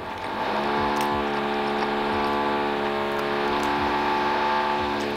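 A woman hums one long, steady note with her mouth closed, held at the same pitch for about five seconds after a short falling slide into it.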